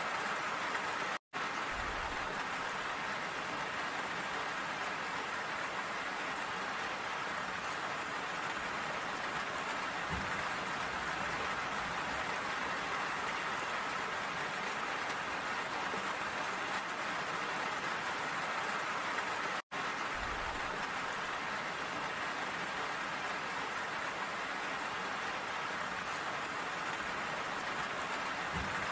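Steady rain falling, an even hiss of many drops. The sound cuts out completely for an instant twice: about a second in, and about two-thirds of the way through.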